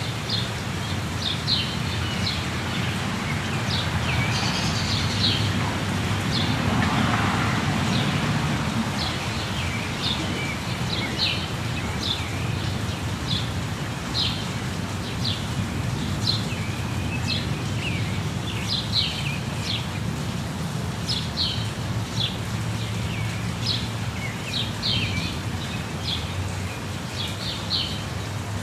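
Steady rush of falling water with birds chirping over it: many short, high chirps, scattered irregularly throughout.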